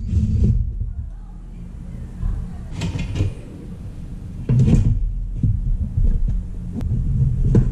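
Corsair HX1200 power supply being taken apart by hand: low bumping and scraping of its metal casing and circuit board against the desk, with a few sharper clunks about three and four and a half seconds in.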